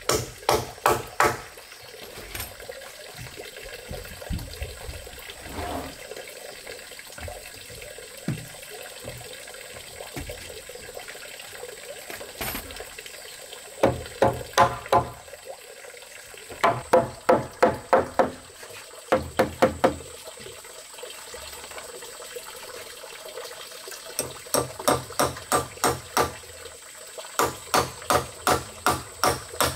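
Runs of rapid hammer blows, about five a second, with a ringing note on each strike, broken by pauses of a few seconds.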